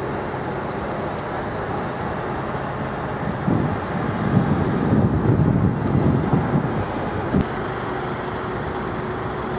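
Steady engine and vehicle rumble, swelling louder for about three seconds in the middle, with a single knock about seven seconds in and a faint steady hum after it.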